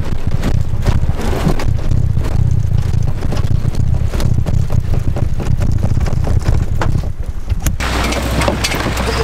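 Chevrolet Silverado pickup's engine pulling a loaded boat trailer up a launch ramp: a rough low rumble with scattered knocks and rattles. About 8 s in it gives way to a steadier, lower engine drone.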